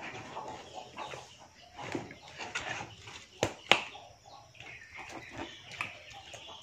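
Scattered short animal calls mixed with handling noises; the loudest sounds are two sharp knocks in quick succession about three and a half seconds in.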